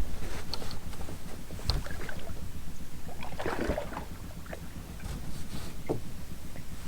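Wind rumbling on the microphone and light knocks aboard a bass boat as a largemouth bass is released over the side, with a brief splash about three and a half seconds in.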